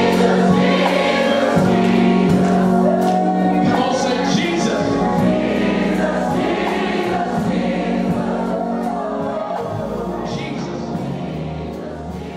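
Gospel choir singing with music, slowly fading out, getting quieter faster near the end.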